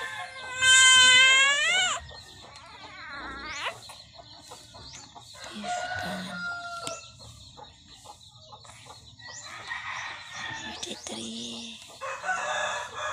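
A rooster crowing, one long loud crow about half a second in that rises at its end, followed by fainter crowing and clucking from chickens later on.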